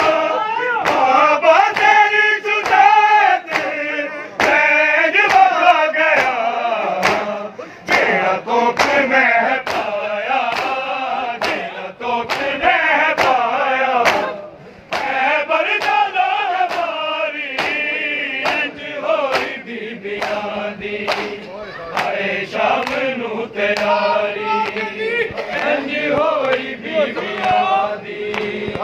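Men chanting a Punjabi noha lament in chorus, over a crowd beating their chests in matam: sharp hand-on-chest slaps in a steady rhythm, about one to two a second.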